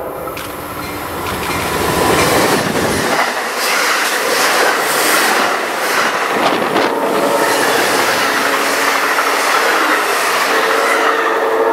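GE P40 diesel locomotive and its passenger coaches passing close at speed: a rumble as the locomotive comes by, then a loud rush of wheel and rail noise with wheels clacking over the rail joints as the coaches go past. A train horn starts sounding near the end.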